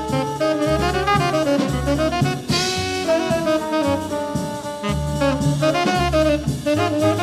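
Background jazz music: a saxophone melody over bass and drums.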